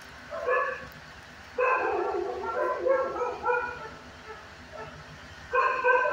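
Dogs barking in a shelter kennel in bursts of pitched barks and yips: a short one about half a second in, a longer run from about one and a half to three and a half seconds, and another starting near the end.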